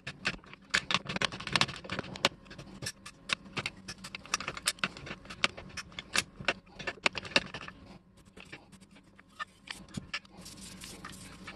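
Rapid, irregular metallic clicking and clinking from the 1924 Walker Badger 3/4-ton jack's toothed steel rack and pawl as the jack is worked by hand, thinning to a few scattered clicks after about eight seconds. A soft hissing rub follows near the end.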